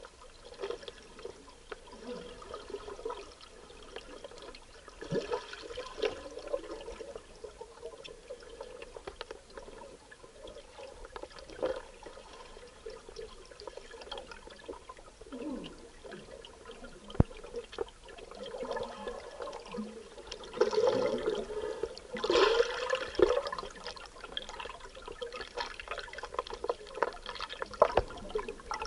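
Water trickling and gurgling, with a few sharp small knocks and a louder stretch of gurgling about three-quarters of the way through.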